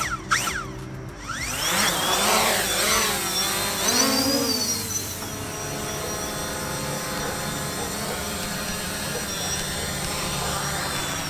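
FIMI X8 SE quadcopter's four propeller motors spooling up for take-off, the whine rising and falling in pitch as it lifts off. It then settles into a steady high whine as the drone hovers. Two short sharp sounds come right at the start.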